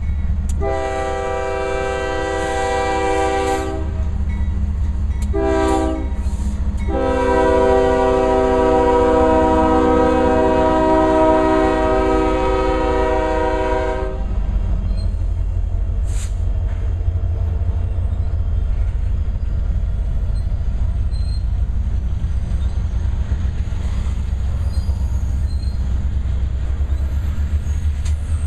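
Union Pacific GE ES44AC locomotive's air horn sounds a long blast, a short one and a final long blast as the locomotive passes close by. After the horn, the steady low rumble and wheel noise of double-stack container well cars rolling past.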